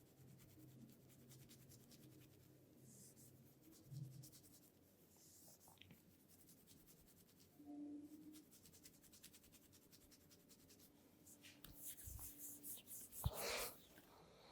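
Faint, scratchy rubbing of hands massaging oil through long hair and over the scalp and neck. Near the end it turns into a quick run of louder strokes with one sharp knock.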